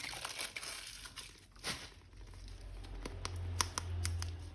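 Plastic toy packaging crinkling and rustling as it is handled and unwrapped, then a few sharp clicks near the end over a low hum.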